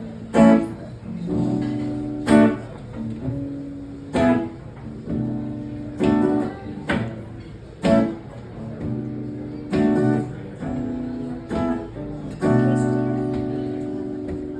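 Acoustic guitar strummed in a slow, steady rhythm, with a strong accented chord about every two seconds: the instrumental intro to a song.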